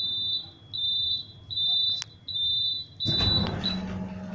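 Tram door-closing warning beeper sounding five high, steady beeps in a row. About three seconds in, a burst of noise as the doors close, then a low hum.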